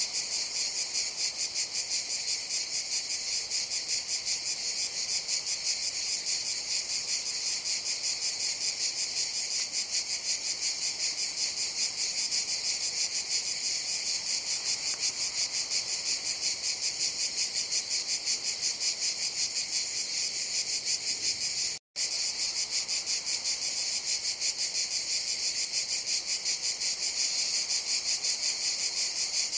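Cicadas buzzing in chorus: a dense, high-pitched drone pulsing rapidly and evenly, which cuts out for an instant about three-quarters of the way through.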